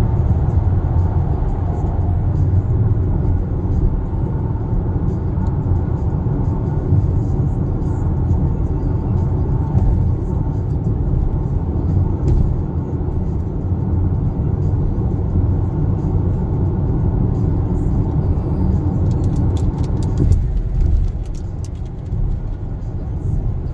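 Kia Sportage NQ5 cruising at highway speed, heard inside the cabin: a steady low rumble of tyre, road and engine noise, dropping a little in level near the end.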